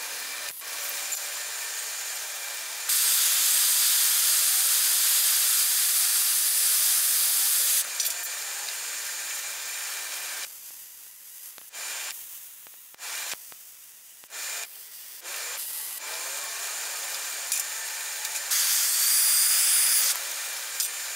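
Handheld gas torch flame hissing steadily while it preheats half-inch steel bar, so the MIG weld won't start cold on metal thicker than the small welder can handle. The hiss gets louder about three seconds in, falls back a few seconds later, drops out briefly several times in the middle, and swells again near the end.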